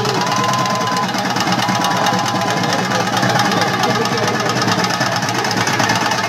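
Chenda drums played in a fast, unbroken roll, the rapid strokes running together into one loud, even pounding.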